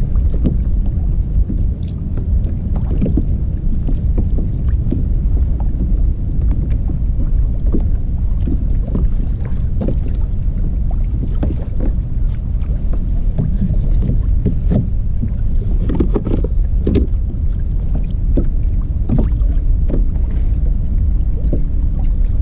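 Wind buffeting the microphone in a steady low rumble, with small waves slapping and knocking irregularly against a fishing kayak's hull as it rocks at anchor in a choppy swell.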